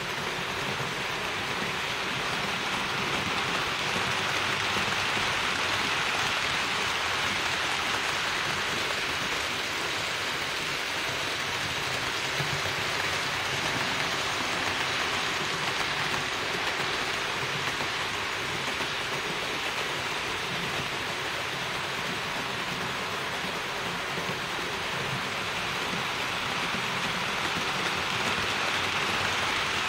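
HO-scale model trains running on Roco Geoline track: a steady rushing hiss of wheels rolling on the rails, a little louder from a few seconds in as the cars pass close.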